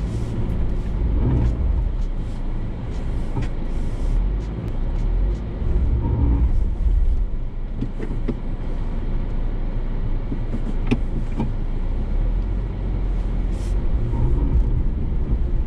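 2022 Ford Bronco Sasquatch driving slowly over an off-road trail: a steady low engine and drivetrain rumble, with a few sharp knocks and clicks scattered through, the loudest about eleven seconds in.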